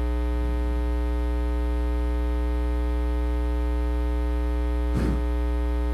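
Loud, steady electrical mains hum with a ladder of overtones, running unbroken beneath the sermon audio. A faint brief sound comes about half a second in, and a short, louder sound near the end.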